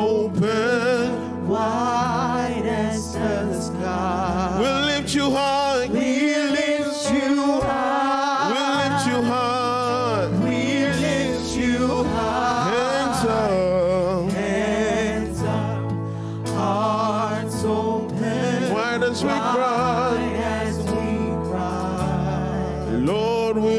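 A live gospel worship song: male and female vocalists singing with vibrato over a band's sustained chords and bass.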